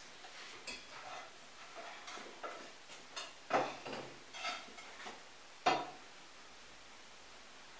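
A frying pan and spoon being handled: a run of light clinks and taps, with two sharper knocks about three and a half and five and a half seconds in, then quiet.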